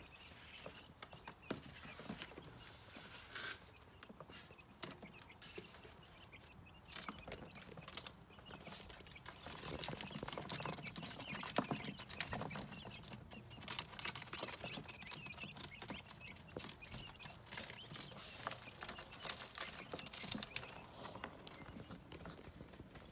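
Young quail chicks cheeping faintly while they move and peck about a brooder, with irregular light taps and scratches on the paper towel and the plastic feeder.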